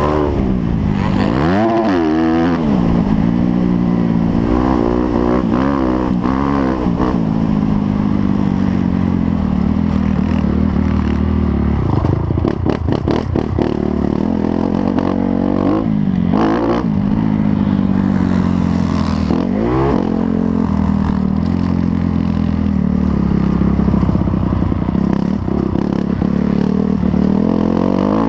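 Motocross motorcycles racing, their engines revving up and dropping back again and again as they ride the track, with more than one bike heard at once. There is a run of rapid clicks about twelve seconds in.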